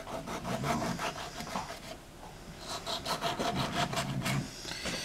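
Kitchen knife sawing through a tomato on a cutting board: quick, rhythmic strokes, several a second, with the blade ticking against the board. There is a short pause near the middle before the slicing resumes.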